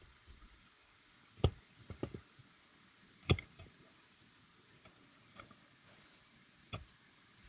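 Pickaxe striking stony soil: three heavy blows at uneven intervals, with a few lighter knocks between.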